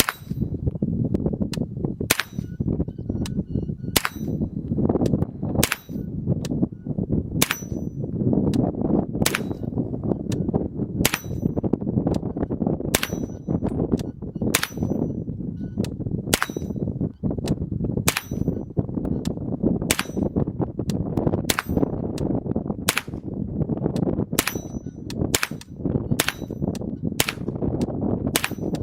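Chiappa M4-22 .22 LR semi-automatic rifle firing single shots, one every second or two and faster near the end. Many shots are followed by the high ping of the bullet striking a steel target.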